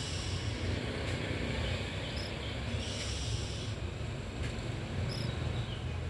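Steady low rumble and hiss of wind on the microphone, with a faint short high chirp about every three seconds.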